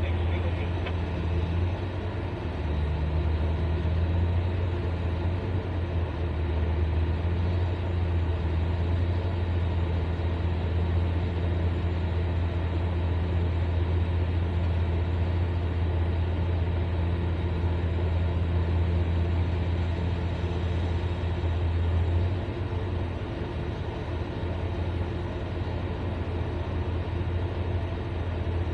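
Large Hyundai 1250-9 excavator's diesel engine running steadily under working load, a deep continuous drone that lifts slightly a few seconds in and eases a little about three-quarters through.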